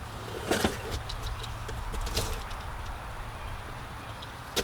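Cardboard chainsaw box being handled and opened: a few short rustles and scrapes and a sharp click near the end, over a steady low rumble.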